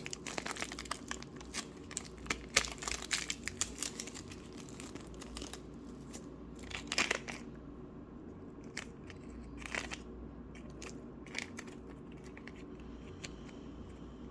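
Hands working Play-Doh slime, making crackly clicks and pops. The crackling is dense for about the first six seconds, then thins out to scattered single pops.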